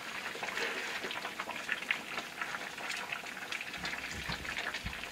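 Pot of chicken soup at a rolling boil, many small bubbles popping steadily, with a few soft low thuds near the end.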